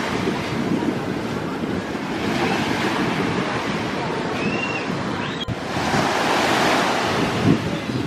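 Large sea waves breaking and washing in the shallows, a steady rushing surf that swells and ebbs, with wind buffeting the microphone. The surf comes up louder after a brief drop about five and a half seconds in.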